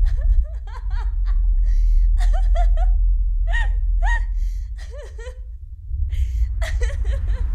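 A person laughing wildly in repeated high-pitched bursts, pausing briefly about five seconds in before laughing again, over a steady low rumble.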